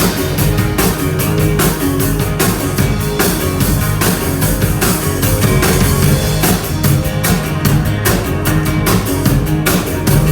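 Live rock band playing a loud instrumental passage, with a steady drum beat and electric guitar.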